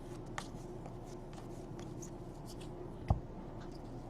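Trading cards and pack wrappers being handled: faint rustling and light ticks, with one sharper click about three seconds in.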